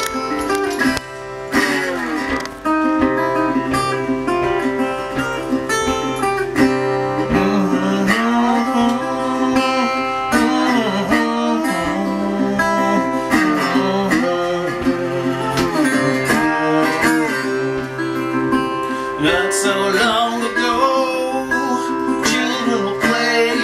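A rock band playing a song live, led by guitar, with many notes bending and sliding in pitch.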